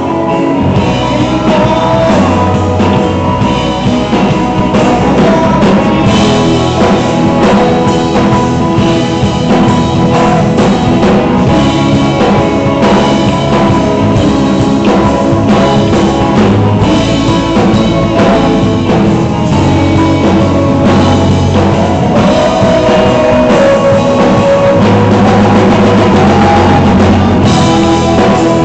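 Live band playing a rock song at full volume: drum kit, guitars, bass and trombone, with voices singing at times.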